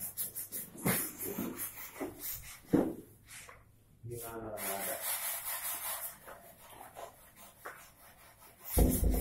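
Sandpaper rubbed by hand over a wooden chair frame in irregular strokes, with a loud low thump near the end.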